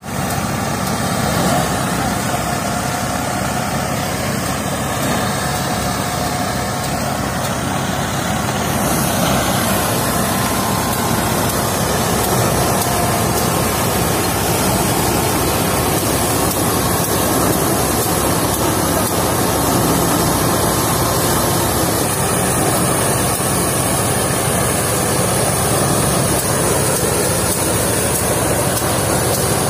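Tractor-driven threshing machine running steadily, its drum powered through a shaft from the tractor's engine as sesame stalks are fed in, making a loud, even mechanical noise with a low pulsing beat.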